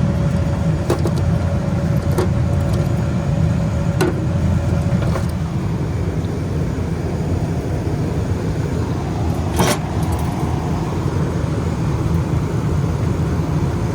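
Refrigeration condensing unit running with a steady low drone, energized on its newly replaced System A contactor. A few sharp clicks and knocks of handling on the unit, the loudest about ten seconds in.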